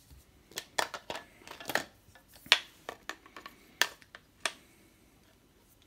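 Handling clicks and taps as a phone and a plastic-and-metal LED work light are moved and knocked against each other, about eight sharp ones in the first four and a half seconds, the loudest about halfway through.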